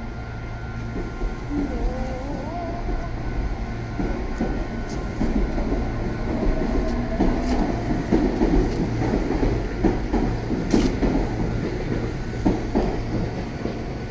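Red Meitetsu electric train pulling out of the station, a whine rising in pitch as it gathers speed, then its wheels clacking over the rail joints more and more from about halfway through.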